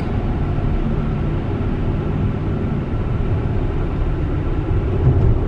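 Cabin road noise of a Tesla electric car cruising at highway speed on wet pavement: a steady, low rumble of tyres and wind with no engine note.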